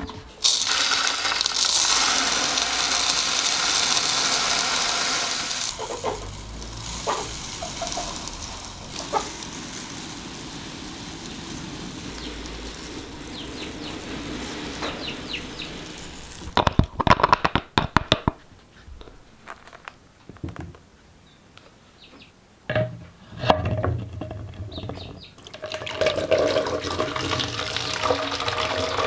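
Water pouring from one plastic bottle into another, then a softer steady hiss of dry feed running down into a plastic bottle. A few sharp plastic clicks and knocks come in the middle, and water runs into a plastic bottle again near the end.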